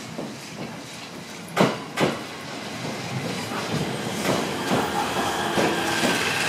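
JR West 225 series electric train pulling into a platform and braking. About a second and a half in come two sharp clacks of its wheels over a rail joint, then a run of lighter clicks as the following wheels cross it. A steady whine builds over the rolling noise in the second half.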